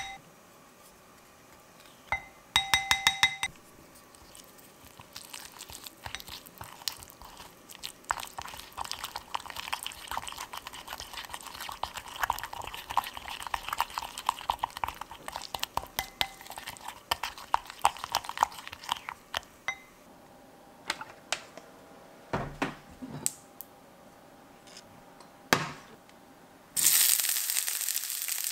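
A metal spoon clinks rapidly against a glass bowl. Then it stirs and scrapes thick gochujang seasoning paste around the bowl, a long run of small wet clicks, and a few knocks follow. Near the end, sliced onion starts sizzling in hot oil in a stainless steel frying pan.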